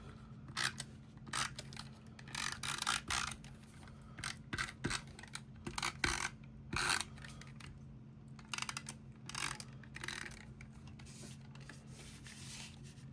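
Tombow adhesive dot roller being run over cardstock in many short strokes, a dry scraping with ratchet-like clicking.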